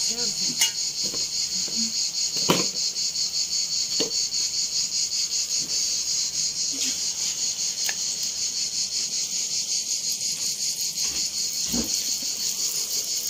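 Insects chirping outdoors in a loud, steady, high-pitched chorus that pulses rapidly and evenly. A few sharp clicks of a metal skimmer against the aluminium frying pot stand out, the loudest about two and a half seconds in.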